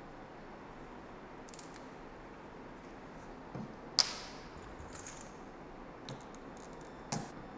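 Sharp clicks and light rustling from handling a Bissell portable spot cleaner's clean-water tank after the cleaning formula and booster have gone in. The loudest click comes about four seconds in, and another just after seven seconds.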